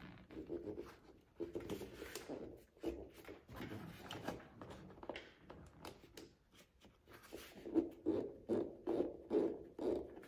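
Screws being driven by hand with a screwdriver through a fabric storage bag into a plastic door panel, with the bag's fabric rustling and scraping. In the last few seconds the turning settles into a regular scrape of about two or three strokes a second.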